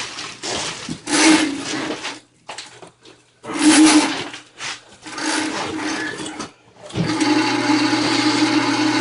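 Electric drain-cleaning machine (motorised drain snake) running in short surges, then starting up and running steadily from about seven seconds in.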